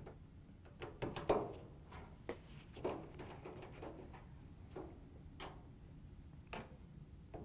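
Light clicks and taps of a hand quarter-inch nut driver seating and turning hex-head screws in a dryer's plastic control panel support frame. There are about seven irregular clicks, the loudest a little over a second in.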